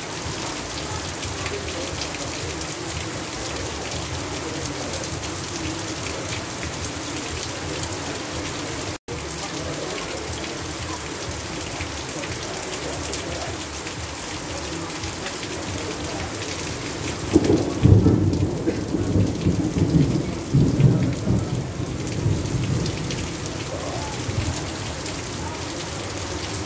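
Heavy rain falls steadily and runs off a roof edge. About two-thirds of the way in, a roll of thunder rumbles for several seconds, swelling twice before it fades. The sound briefly cuts out for an instant about a third of the way in.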